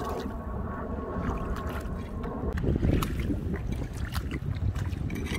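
Someone wading in shallow seawater at night, with small splashes and sloshing water and scattered little clicks, over a steady low rumble of wind on the microphone. A slightly louder splash comes about halfway through.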